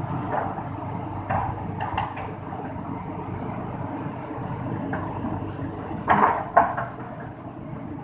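Diesel engine of a Tata Hitachi hydraulic excavator running steadily while it loads a tipper truck. Short sharp clinks come around one to two seconds in, and two louder knocks a little after six seconds.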